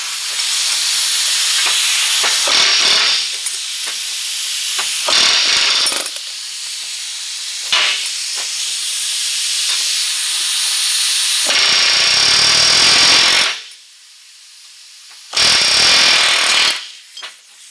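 Power grinder grinding rivet heads flush, in long loud stretches with short dips. It stops about thirteen seconds in and runs again briefly near the end.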